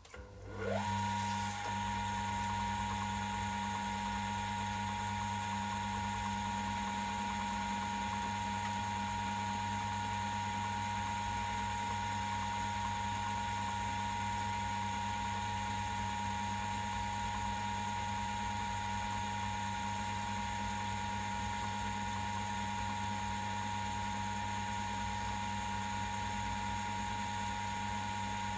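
An old belt-driven metal lathe switched on: it spins up with a quickly rising whine in the first second, then runs steadily with a low hum and a whine held on one note.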